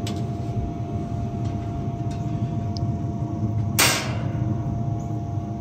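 Lone Star Grillz pellet smoker running with a steady low hum and a faint constant whine from its fan. About four seconds in there is a short swish.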